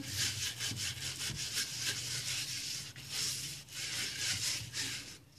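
Pastry brush rubbing ghee over a metal pizza pan in quick repeated strokes, with the bristles swishing on the metal. The strokes fade out near the end.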